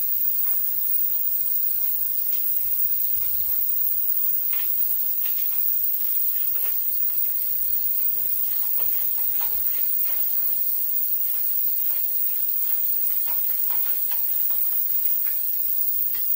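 Steady high-pitched hiss, with faint scattered clicks and clinks of a hand ratchet and socket working the fuel tank's mounting screws loose.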